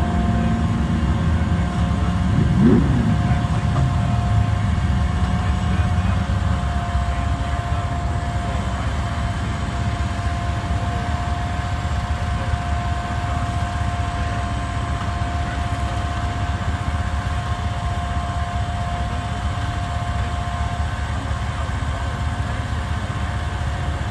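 Rollback tow truck's engine running steadily with a constant whine from the winch as a car is dragged up the tilted bed. An engine revs up and back down briefly about three seconds in.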